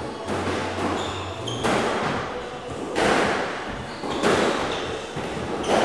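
Squash ball being struck with rackets and smacking off the court walls during a rally: four sharp cracks about a second and a half apart, each echoing around the enclosed court.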